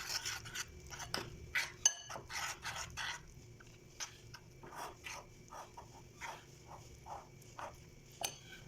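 Spoons scraping and knocking in a bowl as glutinous rice and water are stirred by hand: irregular short scrapes, with one sharper clink about two seconds in.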